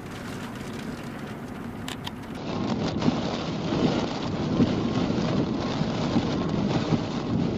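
Vehicle driving through a storm: steady road, wind and rain noise, which becomes abruptly louder about two and a half seconds in.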